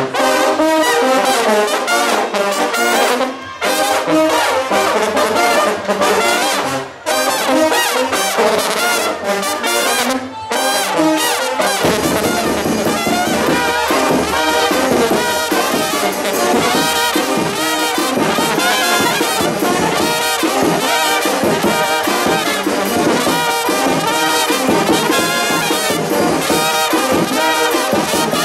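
Serbian brass band playing, trumpets leading: for the first twelve seconds the trumpets play phrases with short breaks between them, then the whole band comes in with a fuller, deeper sound and a steady beat, with tenor horns and bass drum.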